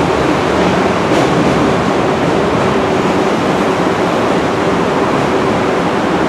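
Chinese-built MTR metro train running through the station: a steady, loud rushing rumble with a faint steady hum and a single wheel click about a second in.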